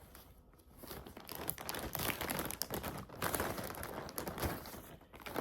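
A mail package being torn open by hand and its wrapping crinkled and rustled, getting busier about a second in.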